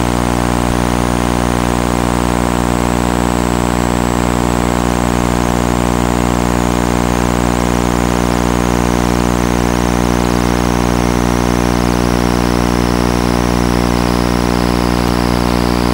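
Steady, unchanging buzzing hum with many evenly spaced overtones from a 5-inch FPV quadcopter sitting on the ground, as picked up on its analog video link's audio and recorded by the goggles' DVR.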